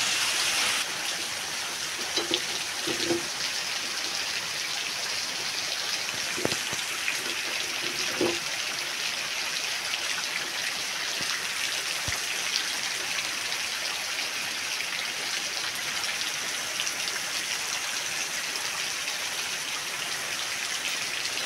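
Steady rain falling, a constant hiss, with a few short knocks in the first half.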